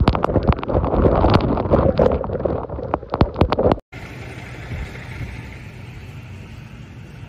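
Tornado winds rushing over the microphone with many sharp knocks and clatters of flying debris. This cuts off abruptly a little under four seconds in, and a steadier, quieter rush of wind with a low rumble follows.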